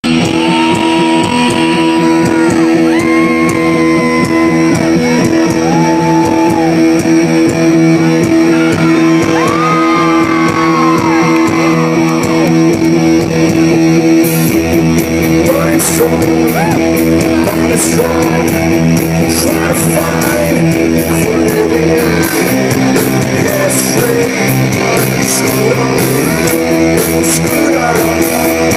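Rock music: an electric guitar intro with held, sliding notes over a steady bass, then drums and cymbals come in about halfway through.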